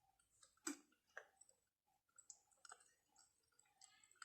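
Faint mouth sounds of eating chicken wings: scattered wet clicks and lip smacks from chewing, the loudest a little under a second in.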